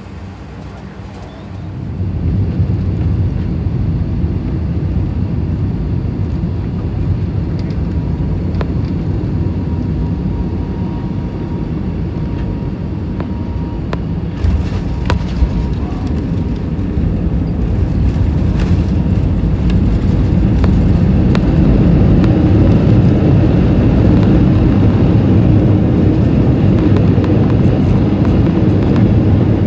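Airbus A320 cabin noise during a fast roll down the runway: a steady, loud low rumble of jet engines and wheels, which steps up just after the start and grows louder again about two-thirds of the way through.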